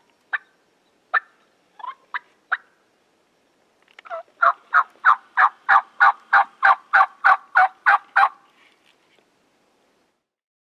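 Turkey calling: a few sharp single clucks, then a steady run of about thirteen yelps, about three a second.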